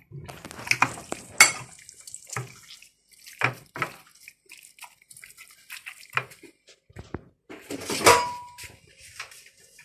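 Gloved hands mixing fish fillets in a wet marinade in a glass bowl: irregular squishing and rustling with scattered knocks against the glass. About eight seconds in comes one louder clink with a brief ring.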